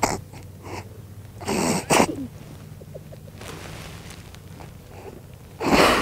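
Short, sharp, breath-like noisy bursts from a person: a pair about one and a half to two seconds in, and a louder one near the end.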